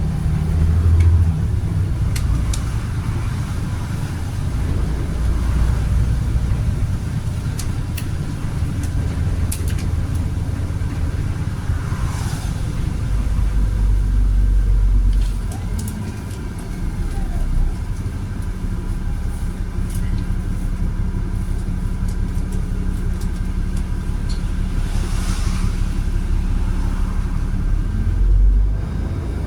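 Volvo B7RLE bus with a Voith automatic gearbox, its 7-litre six-cylinder diesel engine running as the bus drives along with a steady low rumble. The rumble swells about halfway through and then eases off.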